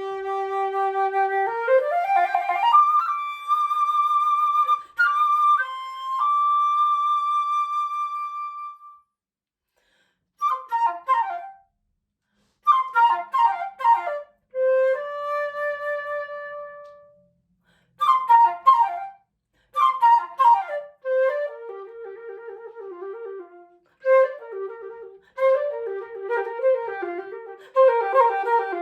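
Solo flute playing slow, free-rhythm phrases. A low note bends upward into a long held high note, and quick downward flourishes are split by short silences. From about two-thirds of the way in, a fast, busy figure repeats in the low register.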